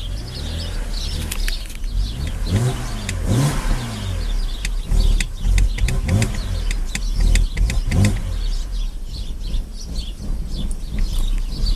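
BMW Z4 3.0si's N52 inline-six idling roughly and hunting. Its speed surges up and sags back several times, with the mass airflow sensor unplugged. The owner takes the rough idle for a large vacuum leak.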